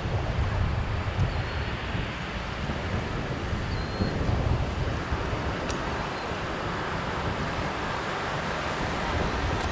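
Wind buffeting the microphone with a low rumble, over the steady wash of ocean surf breaking on the beach.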